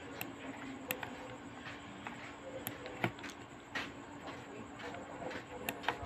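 Quiet room tone with a low steady hum and a handful of faint, scattered clicks.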